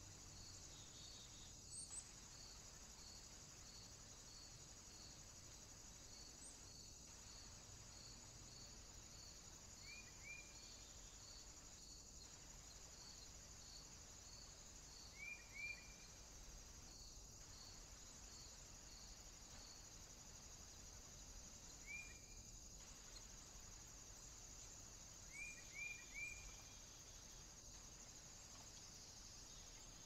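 Faint woodland ambience: a steady high hum of insects, with a regular high ticking about twice a second that stops about two-thirds of the way through. Short chirps come in twos and threes a few times. The sound drops out briefly every five seconds or so.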